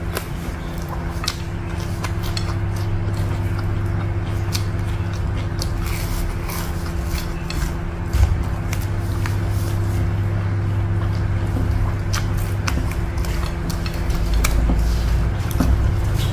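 Close-miked eating sounds: fingers working rice and battered fried food on a plate, with frequent small clicks and mouth noises and a single louder knock about halfway. A steady low hum runs underneath.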